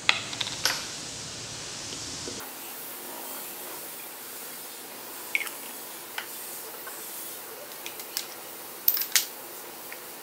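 Scattered clinks and taps of glassware and a small bottle being handled on a lab bench, over a steady hiss. There are two sharp knocks near the start, a few lighter taps in the middle and two close together near the end.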